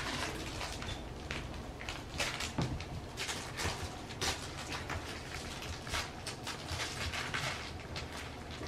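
Two French Bulldog puppies playing and tussling over plush toys on a fleece blanket: scattered scuffling, rustling and small knocks.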